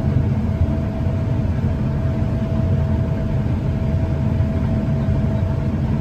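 Steady low rumble of a John Deere combine's engine and threshing machinery heard from inside its cab while harvesting, with a thin, steady whine running over it.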